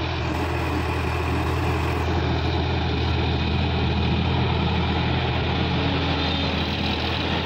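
Sonalika DI-50 RX Supreme tractor's diesel engine running steadily under load as it pulls a rotary tiller through the soil.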